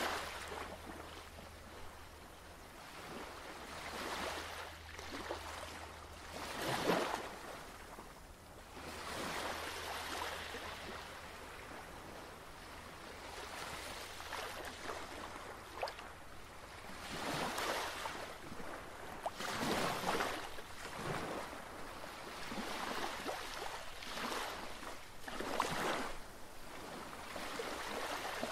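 Ocean surf: waves washing in and drawing back, the rush of water swelling and fading every few seconds. A faint steady low hum runs underneath, clearest in the first seven seconds or so.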